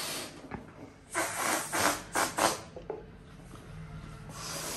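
A person blowing hard through the lips: forceful puffs of breath, a longer one at the start, then a quick run of several short puffs about a second in, and another near the end.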